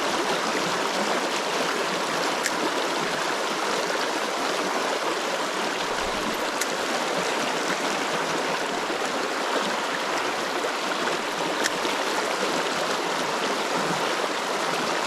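A small river flowing: a steady, even rush of water.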